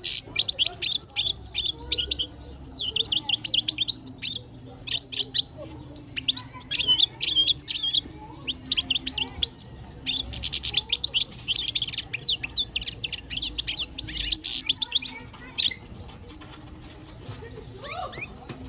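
Male European goldfinch singing: bursts of rapid, high twittering notes, one after another.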